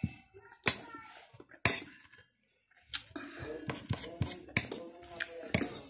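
Spoon and fork clinking and scraping on a plate of noodles and rice. There are two sharp clinks in the first two seconds, then from about halfway a busier run of small clicks along with mouth and chewing noises.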